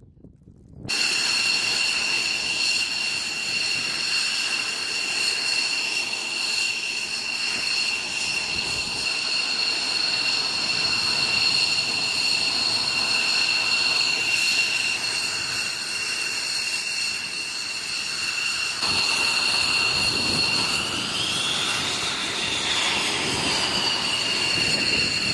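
F-16 fighter jet's turbofan engine running on the ground: a steady rushing whine with two piercing high tones that starts abruptly about a second in. Late on the rush grows louder, and the whine's pitch swells up and back down as the engine power changes.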